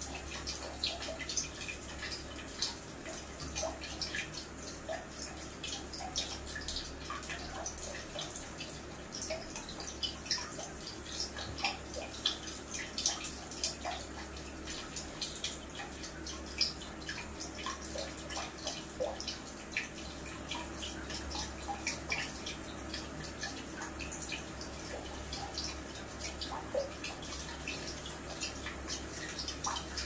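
Thin stream of water trickling from a hose, with many small irregular drips and splashes as a cat laps from the stream.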